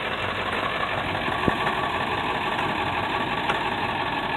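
A vehicle engine idling steadily, with a single short click about one and a half seconds in.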